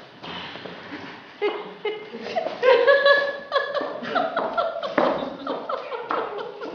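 A voice laughing and making wordless vocal sounds, starting about a second and a half in and loudest around the middle.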